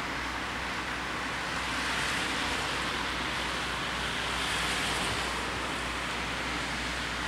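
Road traffic noise: cars passing on a nearby road as a steady hiss of tyres and engines, swelling about two seconds in and again around four to five seconds in.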